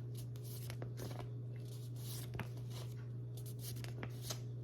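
Faint room tone: a steady low electrical hum with scattered light clicks and rustles.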